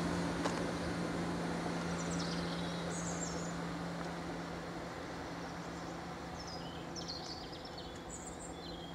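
Two-car diesel multiple unit running away down the line, its steady engine drone slowly fading as it recedes. Birds chirp briefly a few times.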